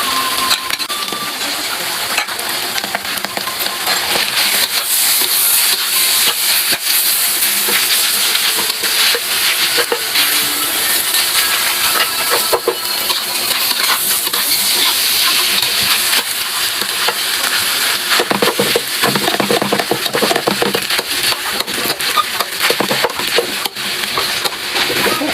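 Fried rice sizzling in a hot pan while being stirred, with a steady hiss and frequent scrapes and taps of the cooking utensil against the pan.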